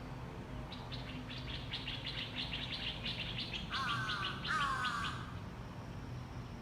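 A bird chirping: a rapid run of high chirps, about eight a second, with two short falling calls near the middle.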